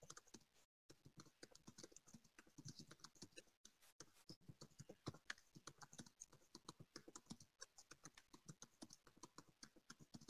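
Faint, rapid, irregular clicking of keys being typed on a computer keyboard.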